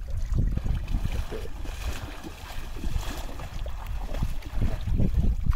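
Water splashing as a person wades through shallow river water, louder near the end, over wind buffeting the microphone.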